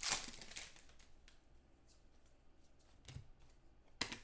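Trading cards and pack wrappers being handled: soft rustling at the start, then a few light clicks and flicks, the sharpest near the end.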